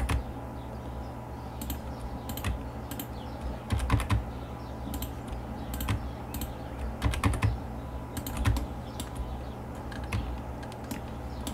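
Computer keyboard keystrokes and mouse clicks, irregular and spaced out, over a faint steady hum.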